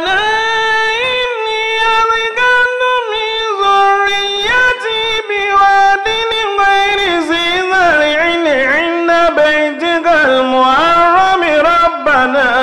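A man's solo voice chanting Qur'anic verses in Arabic, tajweed-style recitation: long held notes sliding and ornamented between pitches, with brief breaths between phrases.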